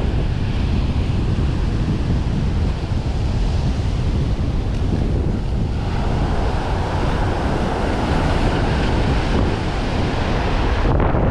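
Ocean surf washing up over a sandy beach, with wind buffeting the microphone. About six seconds in, the hiss of the foaming wash grows louder as a wave sweeps in.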